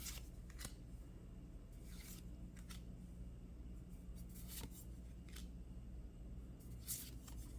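Trading cards sliding against each other as a pulled booster pack's cards are flipped through one by one: a series of short, light swishes, roughly one a second, the loudest near the end, over a faint steady hum.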